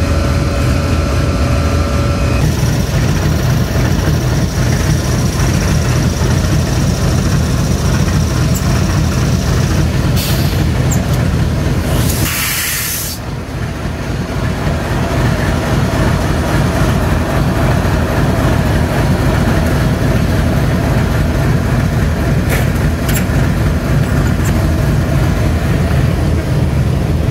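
GEU-40 diesel-electric locomotive's engine idling with a steady, heavy rumble. About twelve seconds in, a loud hiss of released air lasts about a second and a half, and a shorter hiss comes near ten seconds.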